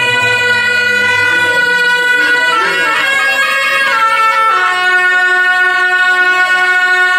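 A wind instrument with a reedy, horn-like tone plays a slow melody of long held notes, stepping to new pitches a few times.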